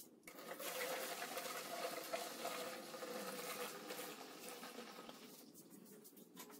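Fuel pouring from a plastic gas can through a funnel into a jet ski's plastic fuel tank, a faint steady splashing wash that trails off about five seconds in.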